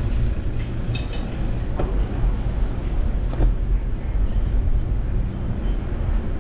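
Steady low rumble of wind buffeting the microphone and tyres rolling over the street while riding a bicycle, with a few faint ticks.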